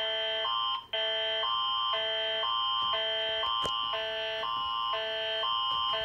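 Canadian Alert Ready attention signal played through a TV speaker: two three-tone chords alternating about every half second, with a high tone held under both. It cuts out briefly just before a second in, and a sharp click comes midway.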